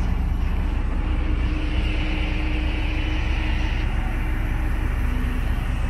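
Steady low engine rumble of a moving vehicle, with a faint hum over it.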